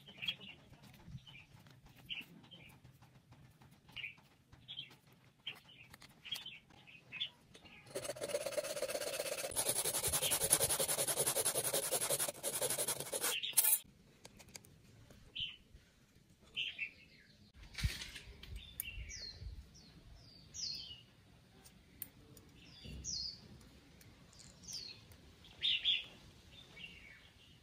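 Small birds chirping in short repeated calls, some sliding downward in pitch. About eight seconds in, a loud, harsh, steady noise starts and runs for about five seconds before cutting off suddenly, and a single sharp knock comes a few seconds later.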